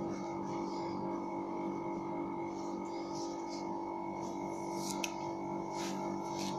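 A steady hum of several held tones, with faint short rustles of a plastic comb parting a child's hair and a small click about five seconds in.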